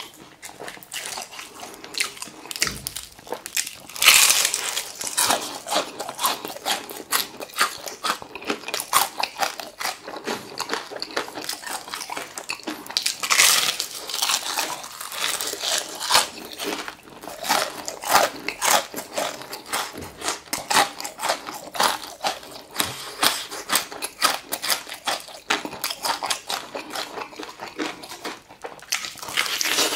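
Close-up crunching and chewing of crispy Korean fried chicken: the crust crackles in dense bursts as it is bitten and chewed, with the loudest bites about four seconds in and again about halfway through.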